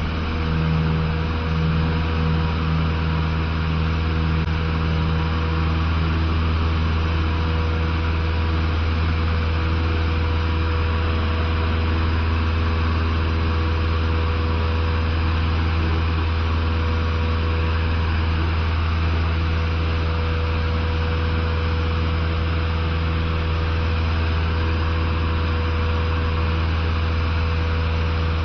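Cessna 150's four-cylinder piston engine and propeller at full takeoff power, heard inside the cabin as a steady low drone through the takeoff and climb-out. An uneven rumble from the wheels rolling on the grass runway fades out about nine seconds in as the plane lifts off.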